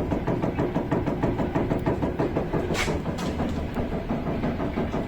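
Second-generation Lincoln Navigator steering rack knocking in a rapid, even run of knocks, several a second, as the steering wheel is rocked back and forth in small movements. The knock comes from play where the pinion meshes with the rack, the sign of a worn rack-and-pinion that clunks over bumps.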